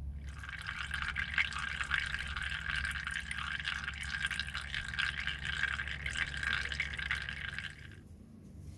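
Thin stream of used engine oil draining from the sump plug hole and splashing steadily into the oil already in a drain pan below. It cuts off abruptly about eight seconds in.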